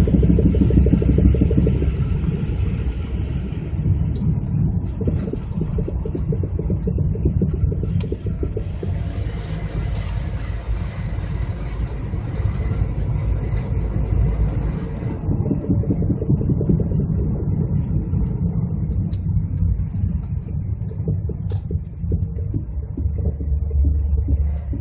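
Mazda Demio DY5W driving, with steady road and running noise and a rapid knocking from the front axle. The owner hears this knock only when coasting; it goes away on throttle or under hard braking.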